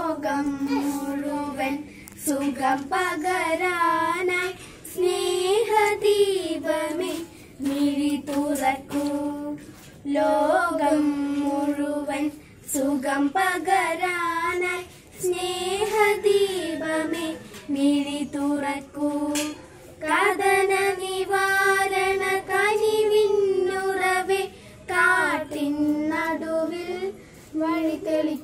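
Young girls singing a prayer song together, in sung phrases of a few seconds with short breaths between them.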